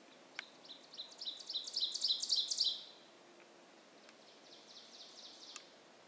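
Songbird song: a run of about ten quick repeated high notes, about four a second, growing louder. About four seconds in, a fainter similar run of notes follows.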